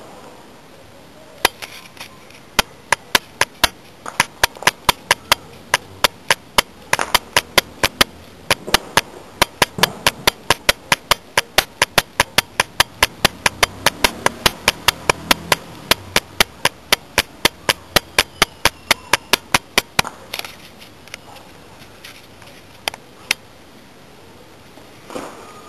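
A long run of sharp bangs, about three a second, starting a second or two in and stopping about twenty seconds in, followed by a few scattered single bangs.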